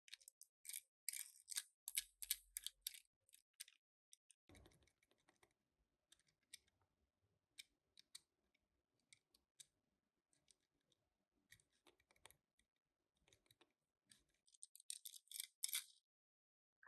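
Faint clicks and crinkles of toy-car packaging being handled and opened, busiest about a second in and again near the end, with scattered single clicks between.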